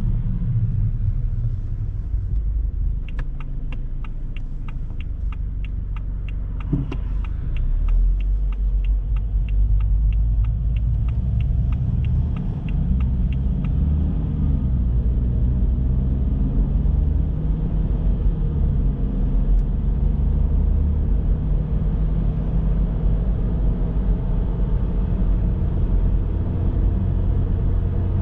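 A car driving, with a steady low engine and road rumble that grows a little louder after about eight seconds. A regular ticking, about three ticks a second, runs for about ten seconds early on, and there is a single knock about seven seconds in.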